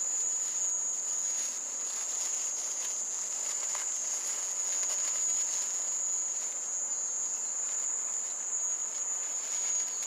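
Mole cricket calling, a steady high buzz that never breaks, with faint rustling of a plastic bag now and then.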